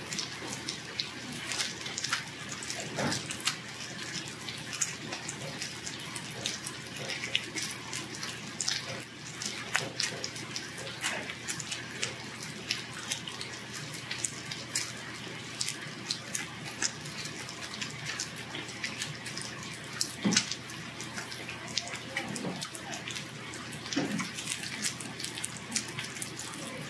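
Pork belly and garlic sizzling on a tabletop grill plate: a steady hiss full of fine crackling and popping fat, with a few sharper clicks and knocks.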